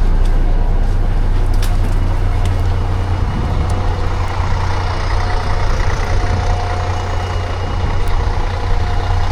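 City bus running, heard from inside: a steady low engine rumble with road noise, and a hiss that grows stronger about halfway through.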